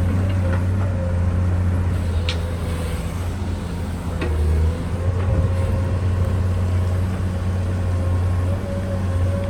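Excavator running steadily under work, with a low engine drone and a wavering whine above it, and a few short knocks or scrapes, the clearest about two and four seconds in.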